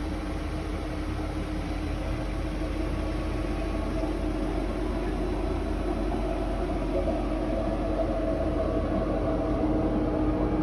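Steady mechanical hum of a Mercedes Sprinter limo van running while standing still, with a low drone and a steady tone, growing slightly louder.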